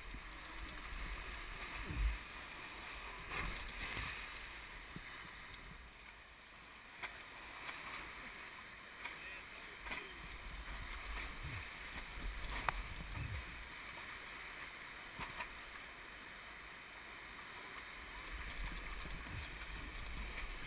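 Whitewater rapids rushing and splashing around an inflatable raft, a steady hiss of churning water over a low rumble, with a few sharp knocks along the way.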